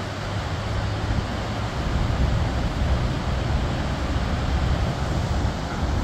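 Steady rush of the Great Falls of the Passaic River in heavy, storm-swollen flow, with gusts of wind buffeting the microphone.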